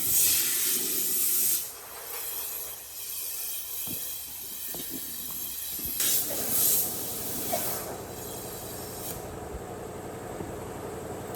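Compressed air hissing in two loud bursts, one at the start and one about six seconds in, as in tire work with an air line; from about six seconds a steady motor hum runs underneath.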